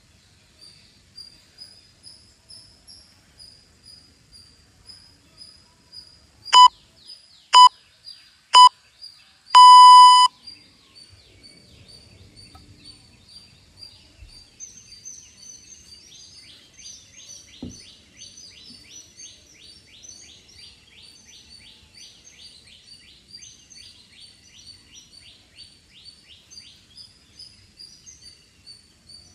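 Interval timer beeping a countdown: three short beeps a second apart, then one long beep as the time runs out, ending the exercise interval. Behind it, birds chirping steadily, with a denser run of rapid chirps in the second half.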